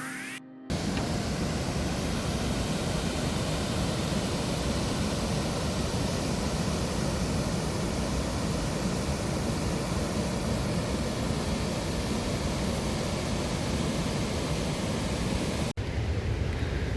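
Steady rushing noise of a waterfall's pounding water, starting less than a second in, with a brief dropout near the end.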